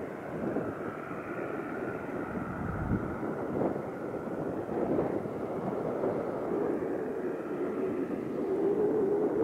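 Rolls-Royce Cullinan test prototype's engine running as it drives across snow, a continuous rumble with a wavering engine note that grows louder near the end.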